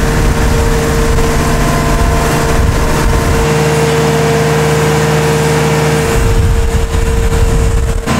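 A tracked skid loader's diesel engine runs steadily with a steady high whine over it while the machine moves pallets on its forks. The engine note shifts about three and a half seconds in and again around six seconds.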